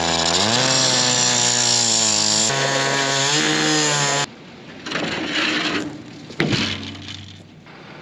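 Two-stroke gas cut-off saw running at high speed on the steel hopper of a concrete mixer truck. Its pitch rises over the first second, steps down about halfway through as it bites, and it stops about four seconds in. After that there is fainter scraping noise and one sharp knock.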